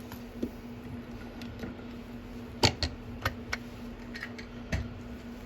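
A handful of small, sharp metallic clicks and taps, scattered over a few seconds, from handling a just-picked-open Master Lock Pro Series 6835 padlock and its picking tools, over a steady low hum.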